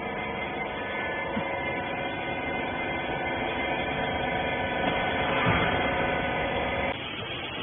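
A clothes baler's electric motor and hydraulic pump running with a steady hum, shutting off about seven seconds in.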